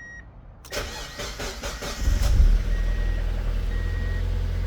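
2000 Mazda Miata's 1.8-litre BP4W four-cylinder cranked by the starter for about a second, catching about two seconds in and settling into a steady idle. A short high warning chime beeps about once a second over it.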